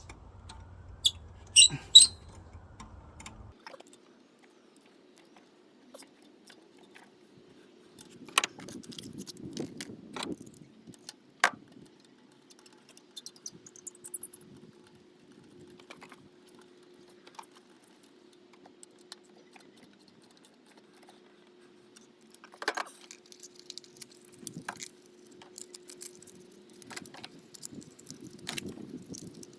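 Scattered clicks, taps and light metallic rattles of tools and engine parts being handled under the bonnet, the loudest a few sharp clicks about two seconds in, over a faint steady hum.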